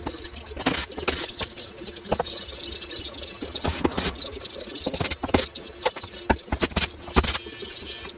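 Irregular knocks and clatter of hand work as a wooden model railroad layout is taken apart.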